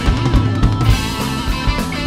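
Live rock band playing an instrumental passage: guitar over a steady, driving drum-kit beat, with no vocals.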